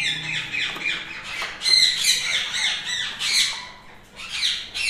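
Alexandrine parakeet hen squawking in a rapid run of calls from inside her nest box as it is opened, defending her eggs, with a short lull about four seconds in before the calls start again.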